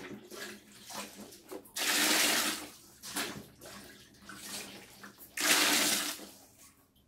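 Water pouring and splashing into a small inflatable paddling pool: two loud gushes of about a second each, around two seconds in and again near the five-and-a-half-second mark, with smaller splashes between as objects drop into the water.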